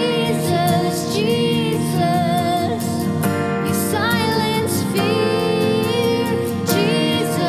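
Worship band music with a voice singing long held notes over steady instrumental accompaniment.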